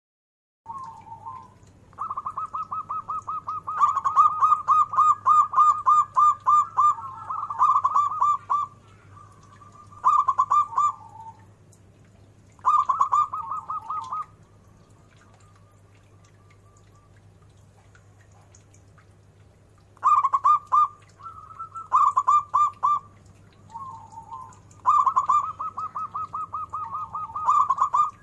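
Zebra dove (perkutut) singing: bouts of rapid, rolling coos lasting a second or a few seconds each, repeated with short breaks and a pause of about six seconds midway. A faint steady low hum runs underneath.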